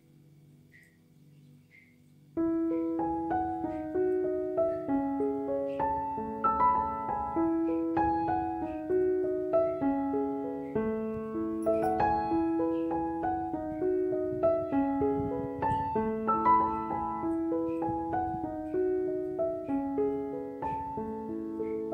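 Background piano music: a gentle melody of single notes with a lower accompaniment. It comes in about two seconds in, after a near-silent start.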